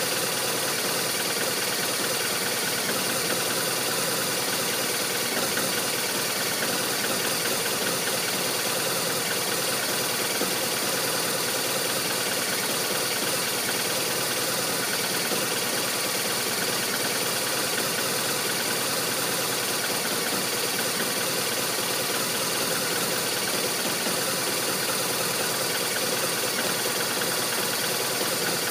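BMW R1200RT's flat-twin engine idling steadily with a rough, uneven idle.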